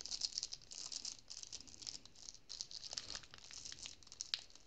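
Clear plastic bag packed with diamond-painting drills crinkling and rattling as it is handled and written on, a light, irregular crackle throughout.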